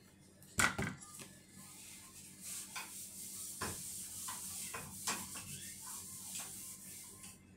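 A sharp click from handling the plastic cooking-oil bottle and its cap, then a steady hiss of oil in a hot nonstick frying pan as it is wiped around with a paper towel, with light knocks of the pan. The hiss cuts off abruptly near the end.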